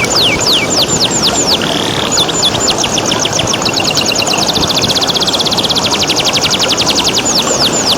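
Domestic canary singing over a steady rush of running water: a run of quick falling whistled notes that turns, about halfway through, into a rapid trill of short repeated notes, then back to falling notes near the end.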